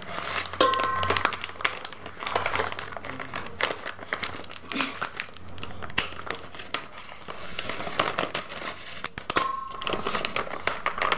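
A plastic food packet crinkling and rustling as it is cut open with scissors and pulled apart, with many irregular crackles.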